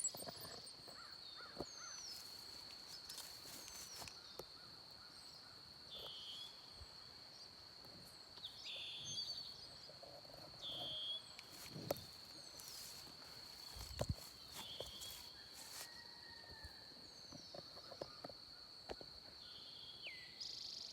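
Outdoor insect chorus keeping up a steady high trill, with birds chirping and giving short falling whistles every second or two, and a few faint knocks.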